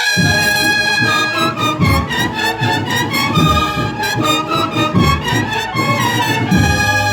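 Brass band music: trumpets and trombones play a melody of held notes over a repeated low beat.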